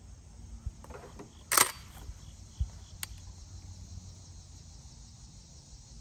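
Handling noise as ear muffs go on and a shotgun is brought to the shoulder: a brief sharp knock about one and a half seconds in, a smaller click a little later and a few soft thumps. Steady insect drone underneath.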